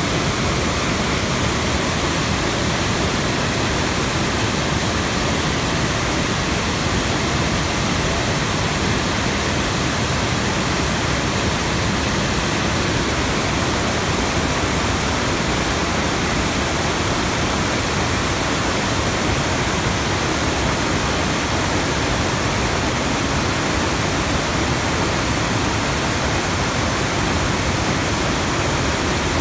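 Steady, loud rush of a fast torrent of muddy whitewater foaming past a river water intake.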